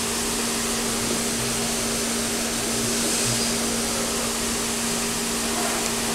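Steady machine hum and hiss with a constant low tone, unchanging throughout.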